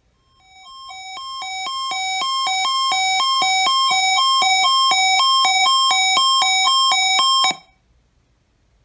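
National Weather Service weather-radio warning alarm being tested: a high-low alarm of two alternating tones, switching a few times a second. It swells up over the first couple of seconds, holds steady and loud, then cuts off abruptly.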